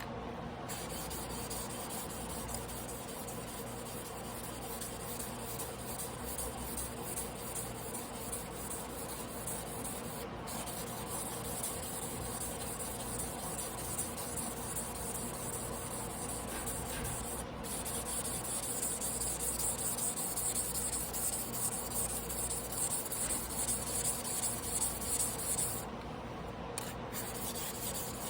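Damascus carbon-steel sashimi knife blade being stroked back and forth on a whetstone by hand, a steady wet scraping. The strokes grow louder from a little past halfway, then pause briefly near the end; there are a couple of short breaks earlier too.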